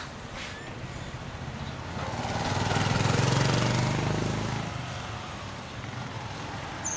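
A vehicle's engine passing by, swelling up about two seconds in, loudest a second or so later, then fading away.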